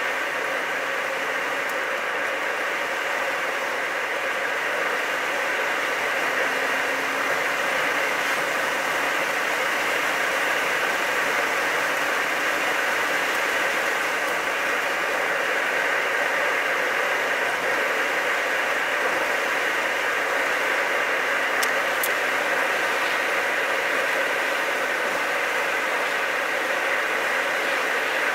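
Steady road and engine noise inside a moving car's cabin, holding an even level at a steady cruising speed. Two faint high ticks sound about three-quarters of the way through.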